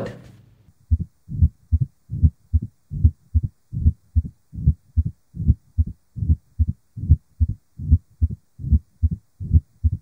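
Recorded heart sounds of mitral stenosis: a regular run of low heartbeats beginning about a second in. It has an opening snap after the second heart sound and a low-pitched, rumbling mid-diastolic murmur with presystolic accentuation.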